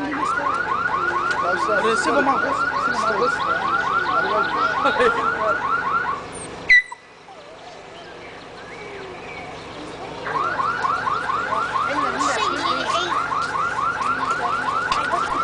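Car alarm siren sounding a fast, evenly repeating rising whoop, about six a second. It cuts off abruptly about six seconds in and starts again about four seconds later.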